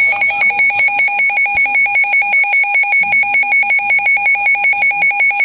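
Emergency alert tone for a severe thunderstorm warning: a loud, rapidly pulsing two-pitch electronic beep, one lower and one higher tone sounding together.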